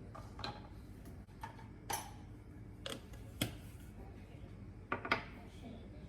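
Kitchen utensils clinking and knocking against pots and dishes, about seven light, sharp clicks spread unevenly over a few seconds, over a steady low hum.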